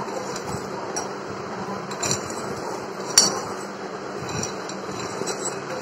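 Hard, crisp fried fusilli pasta pieces rattling as they are spooned into a glass bowl, with several sharp clinks of the spoon against the glass, the loudest a little past three seconds in. A steady low hum runs underneath.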